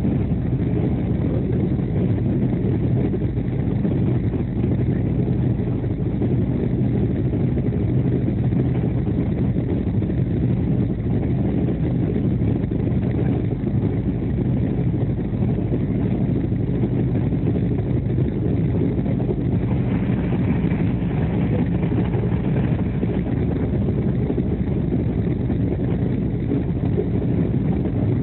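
Steady low rumble of a Duronto Express passenger coach running at speed, heard from inside the coach: wheels on the rails and running gear.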